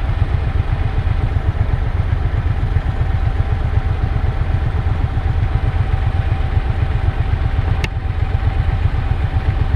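Motorcycle engine running steadily at low revs, heard close up from a microphone on the bike, with one sharp click near the end.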